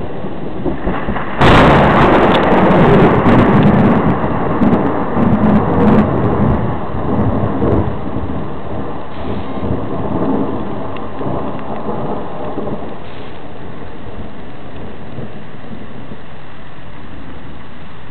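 Thunderclap: a sudden loud crack about a second and a half in, then thunder rumbling unevenly and fading away over about ten seconds. Steady rain hisses underneath throughout.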